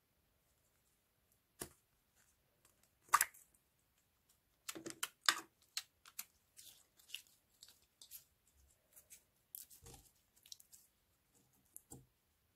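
Close-up handling of slime and its packaging: a string of scattered sharp clicks, crackles and short rustles, the loudest about three seconds in.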